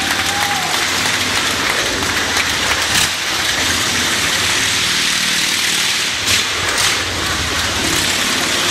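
Motorcycle engine running steadily as it circles the vertical wooden wall of a Wall of Death drum, with a few sharp clicks about three, six and seven seconds in.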